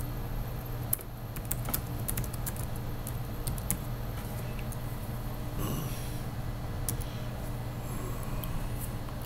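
Scattered clicks of typing on a computer keyboard, thickest in the first few seconds and again briefly near the end, over a steady low hum.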